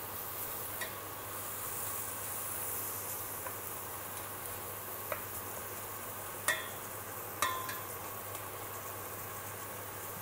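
Chopped onion, celery and garlic with ground spices frying in oil in a stainless steel pot, a steady sizzle, while a spatula stirs them. A few sharp knocks of the spatula against the pot come in the second half.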